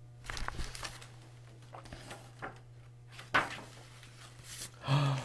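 Paper pages of a large picture book rustling and flipping as they are turned, a soft rustle about half a second in, then a few small crisp paper sounds, the sharpest about three seconds in. A man's voice begins just before the end.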